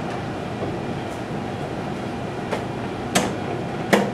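Steady room noise throughout, with three sharp taps evenly spaced in the second half, the last two loudest.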